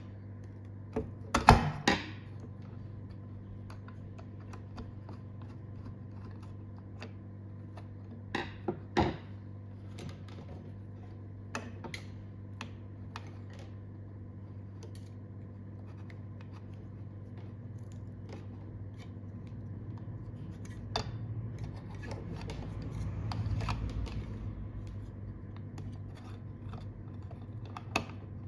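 A steady low hum with scattered clicks and knocks, the loudest a short cluster about one and a half seconds in and a pair of knocks about nine seconds in.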